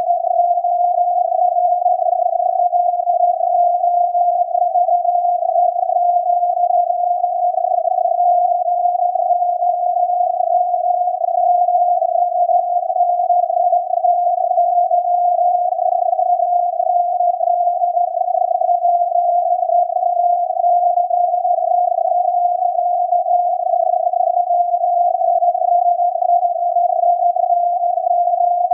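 Radio reception of the SAQ Alexanderson alternator's 17.2 kHz longwave signal, heard through the receiver as a steady tone of about 700 Hz inside a narrow band of filtered hiss. It runs on without breaks, with no Morse keying gaps to be heard.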